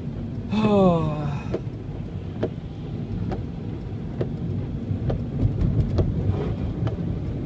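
Inside a car at highway speed in heavy rain: steady road and rain noise, with a light tick about once a second that keeps the pace of the windshield wipers. About half a second in, a man lets out a short, falling 'oh'.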